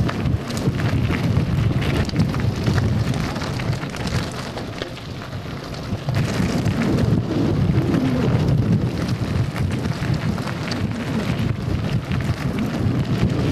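Mountain bike descending a rough gravel track at speed: a dense low rumble of tyres on gravel and wind on the microphone, with many small knocks and rattles from bumps. It dips briefly for a couple of seconds about four seconds in.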